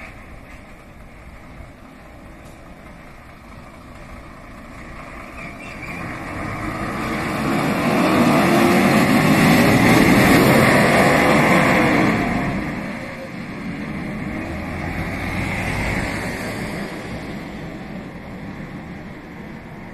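Fire engine (pumper truck) driving past: engine and tyre noise swells to a peak, the engine note rising as it accelerates, then drops away and fades.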